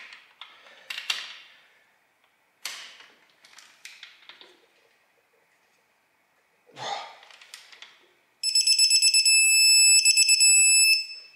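A digital torque wrench beeps on reaching its 100 ft-lb setting on a 2JZ head-stud nut: a loud, high electronic beep pulsing rapidly for about two and a half seconds, starting late in the stretch. Before it come softer, scattered clicks and scuffs as the wrench is pulled round.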